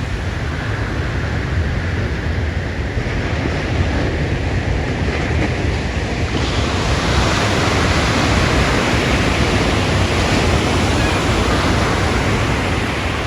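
Ocean surf washing steadily, with a wave surging louder about six seconds in. A low wind rumble on the microphone runs underneath.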